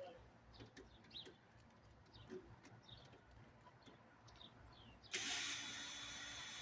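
Faint birds chirping, then about five seconds in a power drill starts and runs steadily at speed, now that its bit is fitted.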